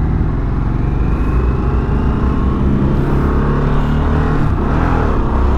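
Harley-Davidson Sportster S's Revolution Max 1250 V-twin running while the bike is ridden. The engine note dips briefly and picks up again near the end.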